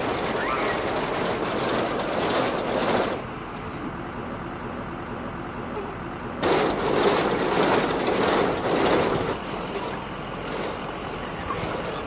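Clattering rattle of an ammunition loading system feeding 20mm rounds into an F-16's gun, in two spells of about three seconds, the second starting about six and a half seconds in.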